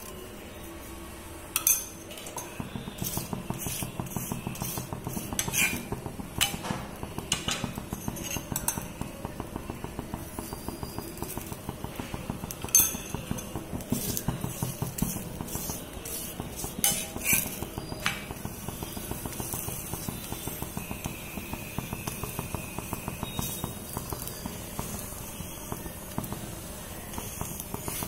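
Metal spoon and flat steel spatula working a stuffed poli on a hot griddle: sharp clinks of metal on the griddle, beginning about a second and a half in, over a fast, steady patter of soft taps and scrapes as the flatbread is pressed and spread while it fries.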